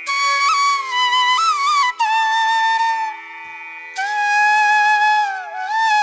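Background music: a flute plays slow, long held notes with pitch slides and ornaments over a steady drone, in an Indian classical style. The melody pauses briefly about three seconds in, then resumes and turns downward near the end.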